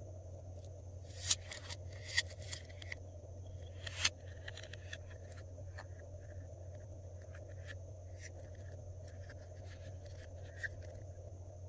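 Glossy slime being mixed and squeezed by hand, with sharp clicks and pops. These are loudest in the first four seconds, then ease into lighter, scattered crackles over a steady low hum.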